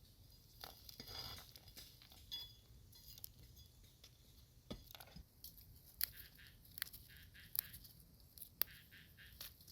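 Light clinks, taps and clicks of cooking utensils and ingredients being handled, spaced irregularly, with a soft rustle about a second in.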